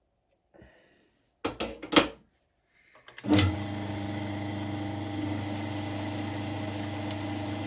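A few sharp metallic knocks and clicks, then a little over three seconds in a South Bend lathe's motor switches on and runs with a steady hum.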